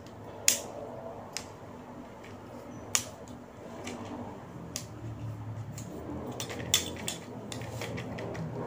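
Tripod being adjusted by hand: a series of sharp clicks and snaps from its leg locks and pan head, a second or two apart, the loudest about half a second in and around three seconds in.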